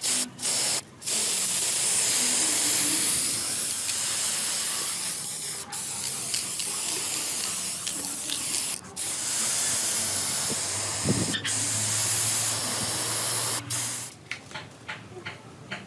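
Aerosol spray-paint can spraying in long hissing bursts broken by short pauses. Near the end it gives way to a few scattered clicks.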